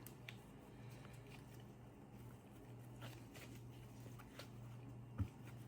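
Faint, scattered clicks and taps of small screws and plastic parts being handled, the sharpest about five seconds in, over a steady low hum.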